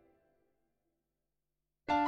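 Piano music: a chord dies away, about a second of silence follows, and a loud new chord strikes near the end.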